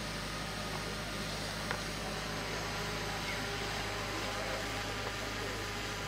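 Steady low hum with a constant hiss over it, and a single faint click about a second and a half in.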